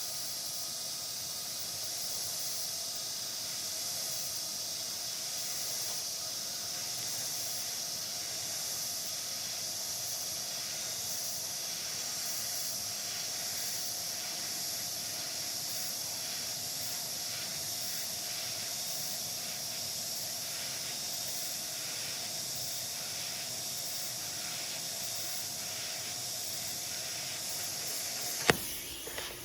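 TIG welding arc from a Bestarc 145 inverter welder, struck by lift arc, burning with a steady hiss. It cuts off suddenly with a click about a second before the end.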